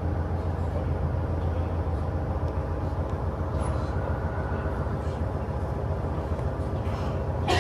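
Inside a KiHa 110 diesel railcar under way: a steady low drone from the diesel engine and running gear. A short sharp clatter comes near the end.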